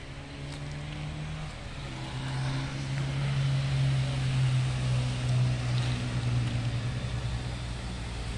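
An engine running steadily, its pitch stepping down a little about a second and a half in, then growing louder over the next few seconds before easing off slightly.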